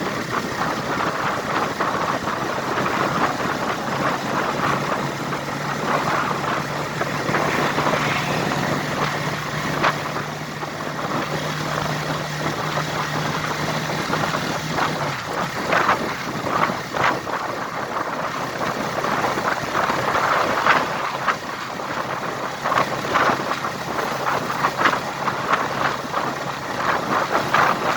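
A vehicle on the move, with wind buffeting the microphone in irregular crackling gusts over a steady low engine hum that drops out for a while in the middle.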